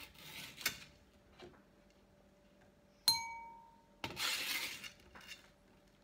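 A metal spoon scraping bread crumbs across a metal pizza pan, twice in short rough strokes, with one bright ringing clink about three seconds in as the spoon strikes a dish.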